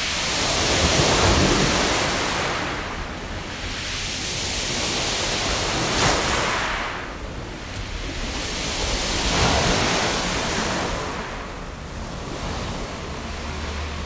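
Sea waves breaking on a beach of smooth, round pebbles (mongdol), with the stones clattering in the surf. Three waves swell and fade, about one every four seconds.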